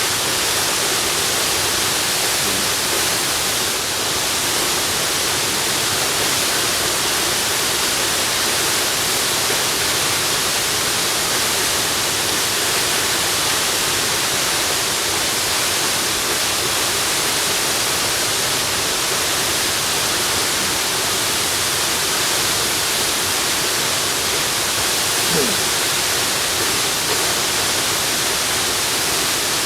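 Waterfall: the steady rush of falling water, an even hiss strongest in the high end, with no change in level.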